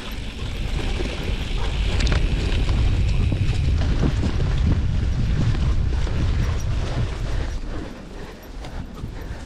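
Bicycle rolling fast over a dirt trail: tyre rumble and frame rattles under heavy wind buffeting on the microphone, with scattered knocks from bumps. It eases off somewhat near the end.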